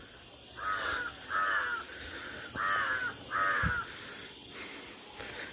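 A crow cawing four harsh caws, in two pairs about a second and a half apart.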